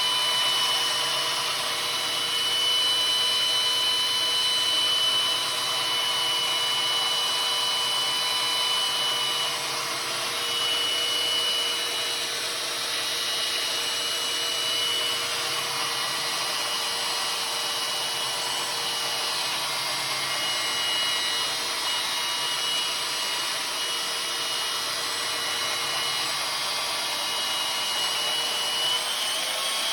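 Electric power tool grinding the steel edge of a maul, running steadily with a high whine over a rough grinding hiss; the whine wavers and breaks a few times.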